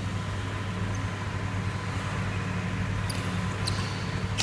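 Badminton rackets striking the shuttlecock during a doubles rally: a few sharp hits in the second half, over a steady low hum.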